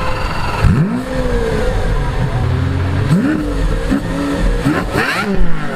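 Lamborghini Aventador's V12 engine revving hard several times, its pitch climbing steeply and dropping back each time, with a quick cluster of revs near the end.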